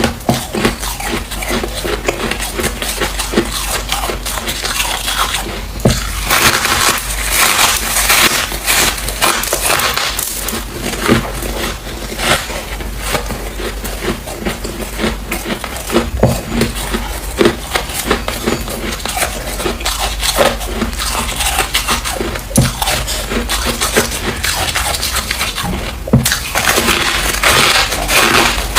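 Close-miked crunching of freezer frost as it is bitten and chewed: a continuous run of crisp crackles and sharp crunches.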